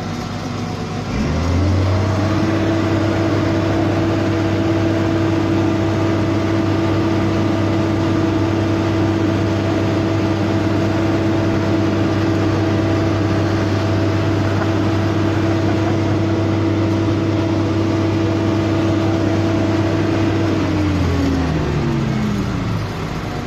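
Diesel engine of a road-construction machine rising from idle to high revs about a second in, running steadily at high revs, then dropping back toward idle near the end.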